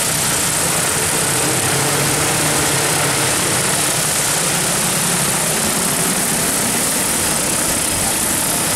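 DJI Agras T40 agricultural spraying drone's rotors running, a loud steady whirring drone with a faint low hum under it.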